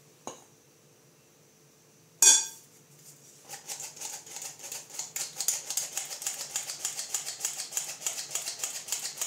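Hand-held metal flour sifter being worked over a bowl, its handle and mesh mechanism making a fast, even run of clicks as flour is sifted into the batter. A single loud clank comes about two seconds in, before the clicking starts.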